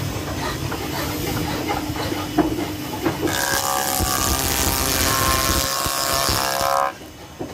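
Power woodworking planer shaving along a wooden cricket bat blade. It runs with irregular knocking of the wood at first; from about three seconds in, the cutting turns into a loud whining hiss that stops abruptly near the end.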